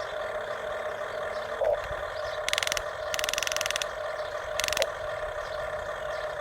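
Steady mechanical whirring, with three short bursts of fast ratcheting clicks about two and a half, three and four and a half seconds in.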